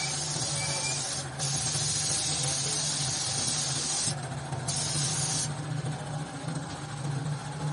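Gravity-feed air spray gun hissing as it sprays silver paint, in spurts: the hiss stops briefly twice and eases off over the last couple of seconds. A steady low hum runs underneath.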